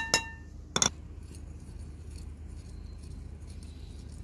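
A glass bowl gives a short ringing clink as it is struck, and a sharp knock follows under a second in. After that come faint light ticks and scraping as a wire whisk begins working powdered sugar into raw eggs in the glass bowl, over a steady low hum.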